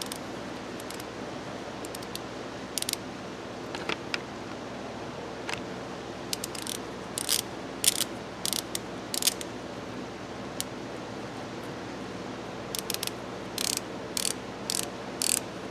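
A freshly rebuilt Snap-On ratchet worked back and forth by hand. Its pawl clicks in short runs of quick, sharp clicks, the densest runs in the middle and near the end. The clicking shows the rebuilt mechanism catching and working properly.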